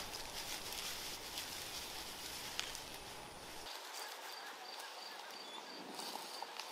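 Quiet countryside ambience: rustling and small clicks of movement through long grass. After a cut, a faint high chirp repeats a few times a second.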